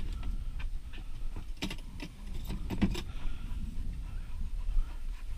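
Clicks and rattles of a plastic pet carrier with a wire door being handled on a ute tray.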